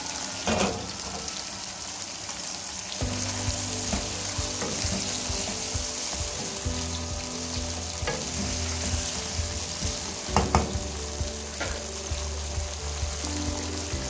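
Chicken pieces and tomatoes frying in oil in a nonstick karahi, with a steady sizzle. A wooden spatula stirs them and knocks against the pan a few times, twice in quick succession about ten seconds in.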